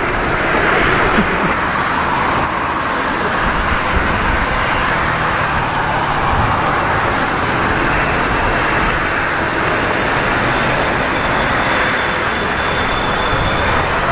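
Steady roar of Boeing 777 airliners' jet engines mixed with strong wind rumbling on the microphone. Near the end a faint whine of an approaching 777's engines comes in.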